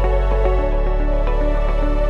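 Background music: soft new-age style electronic track with sustained chords over a held bass note that changes about half a second in.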